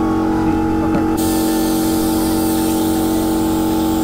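Compressed-air paint spray gun starting to spray about a second in, a steady hiss over a continuous steady hum.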